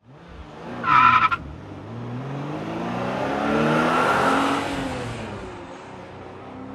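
A short, loud, high screech about a second in, then a car engine revving up, swelling and dying away.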